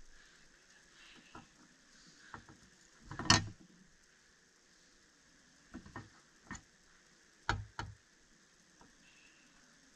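Scissors and a fishing hook being handled on a granite countertop while cutting teaser material: a few scattered clicks and knocks, the loudest a short clatter about three seconds in and a pair of knocks near the end.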